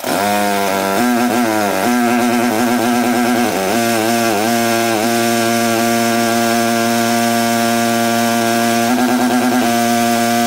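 Gas-engine pressure washer running hard. Its engine speed dips and recovers several times in the first few seconds, then holds steady, rising briefly near the end.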